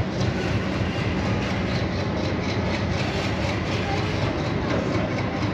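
Freight train of loaded flat wagons rolling slowly along the rails: a steady rumble of wheels with light, evenly repeated clicking.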